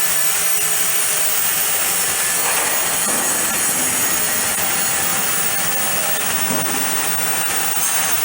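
Angle grinder grinding metal, a steady loud hissing grind with a high whine, prepping the material for welding.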